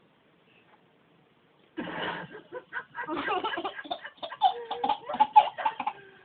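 A single sneeze about two seconds in, then loud, hearty laughter that keeps going.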